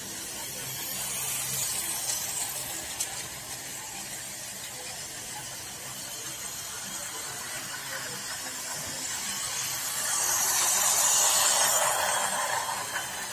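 Toy electric train's motor and wheels whirring along plastic track, growing louder from about ten seconds in as it comes up close.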